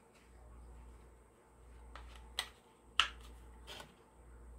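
A few faint clicks and taps from handling small cosmetic packaging as a lipstick is taken out of its box, the sharpest click about three seconds in, over a low steady hum.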